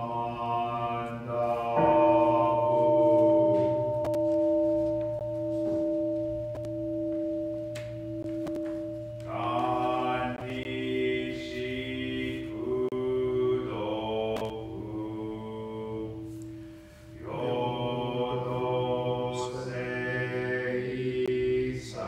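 Buddhist sutra chanting in Japanese on a steady reciting pitch: a long held note about two seconds in, then a run of chanted phrases.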